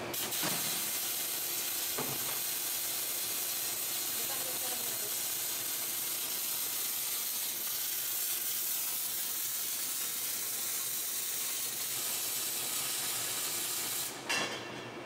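Automatic arc welder welding a seam on a steel LPG cylinder body, the arc hissing and sizzling steadily and cutting off about fourteen seconds in. A click comes at the start and another about two seconds in.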